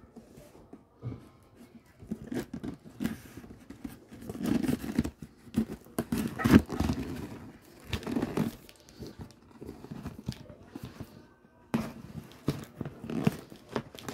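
Scissors cutting open a cardboard shipping box, with packing tape tearing and the cardboard rustling and scraping in irregular bursts, loudest about halfway through.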